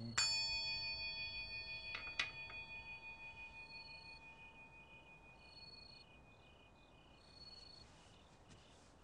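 Buddhist altar bowl bell (rin) struck with a stick, ringing with a long, slowly fading tone of several pitches. It is struck again about two seconds in.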